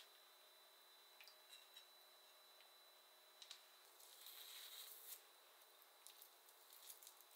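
Boiled chicken breast being pulled apart by hand: faint soft squishing and tearing, with a few light clicks, the loudest stretch about four to five seconds in.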